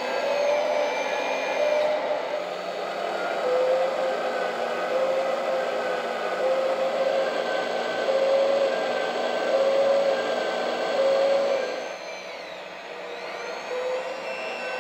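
Electric hydraulic pump of a 1/14 scale RC excavator whirring steadily under load, its whine rising and falling every second or so as the hydraulic cylinders work the boom and arm. It eases off and dips in pitch for a moment near the end.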